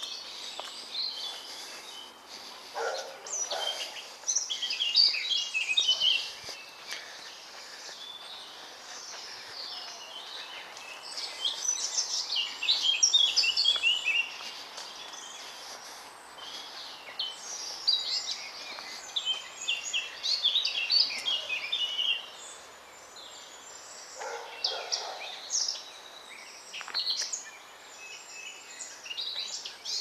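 Woodland songbirds singing, bursts of rapid, high twittering phrases that come and go, over a steady background hiss.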